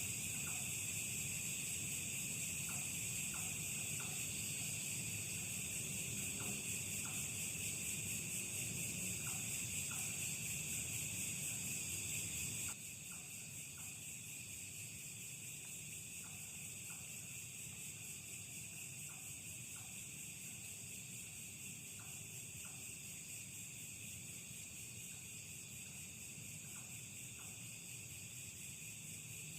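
Night insects, crickets, chirring in a steady high-pitched chorus. The whole sound drops noticeably in level about thirteen seconds in.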